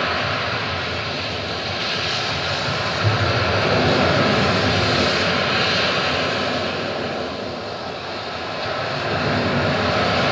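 Recorded soundscape playing as the dance's accompaniment: a steady rushing roar that slowly swells and fades, with a brief thump about three seconds in.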